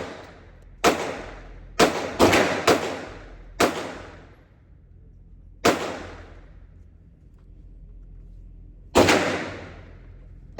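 Gunshots at a shooting range: seven sharp cracks at irregular spacing, a quick string of five in the first four seconds, then single shots. Each shot rings out with an echoing tail of about a second.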